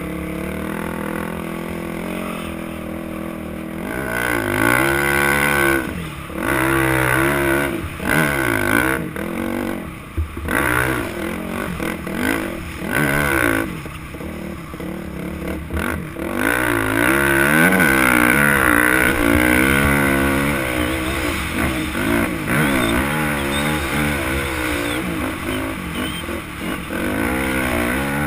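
Dirt bike engine ridden through soft sand, running fairly steadily for the first few seconds, then revving up and down again and again as the throttle is worked.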